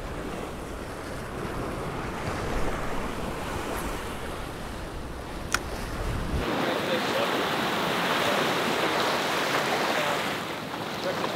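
Rough surf washing and breaking against jetty rocks, with wind buffeting the microphone. There is one sharp click about halfway through, and soon after the wash turns abruptly to a brighter hiss with less low rumble.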